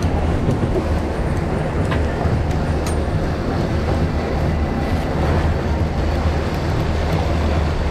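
Boat engine running steadily with a constant low hum, under a steady rush of wind and water noise.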